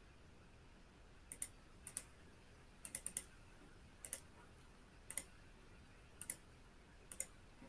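Faint computer mouse clicks, about a dozen in all, mostly in quick pairs spaced roughly a second apart.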